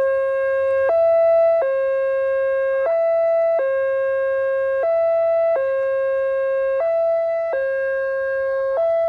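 Electronic railway level-crossing warning alarm sounding a steady two-tone pattern: a lower tone held for just over a second, then a higher tone for under a second, repeating about every two seconds.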